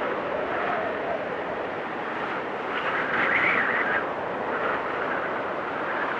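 Strong winter wind blowing steadily, rushing and howling with a faint wavering whistle, and a gust swelling about three seconds in.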